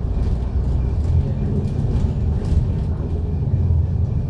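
Diesel engine and drivetrain of a MAN A95 (Lion's City DD) double-deck bus running, heard from inside as a low, steady drone that swells slightly in the second half, with faint rattles.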